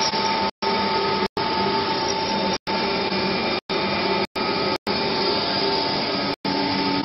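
Centrifugal-pump powder-liquid mixer running: a steady motor hum and rushing noise with a constant whine. The sound cuts out completely for a split second several times.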